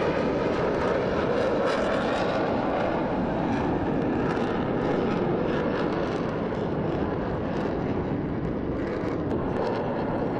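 Twin turbofan engines of an F/A-18 fighter jet flying a tight, high-G turn: a steady, loud jet rumble that eases slightly in the second half.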